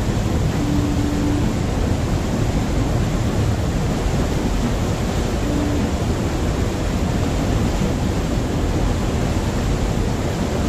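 A passenger ferry under way: the steady churning rush of its wake and propeller wash, over a continuous low rumble from the ship's engine.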